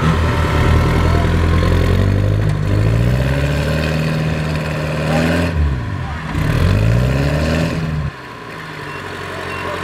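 Engine revving hard under load as a mud-stuck farm truck is towed out, its wheels churning in deep mud: the pitch climbs, sags and recovers about six seconds in, then drops off suddenly about eight seconds in to a quieter idle.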